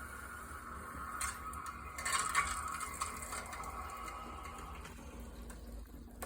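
Water rushing through the pipes just after the supply valve is opened, a steady hiss that fades away about five seconds in, with a few clicks along the way.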